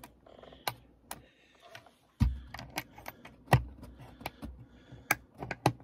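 Wooden packing crate being handled: an irregular run of clicks and knocks on wood, with several heavier thumps from about two seconds in.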